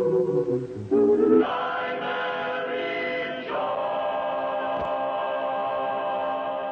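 Closing theme music of held chords, moving to one long sustained final chord about three and a half seconds in.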